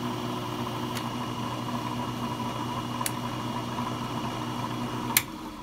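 Ammco brake lathe running under power feed during a rotor cut: a steady motor and gearbox hum. A sharp click near the end, after which the deepest part of the hum stops.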